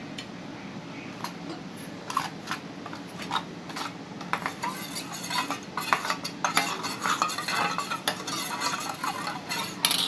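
Spoon stirring cornflour and water into a lump-free batter in a bowl, clinking and scraping against its sides; the strokes come faster and louder from about four seconds in.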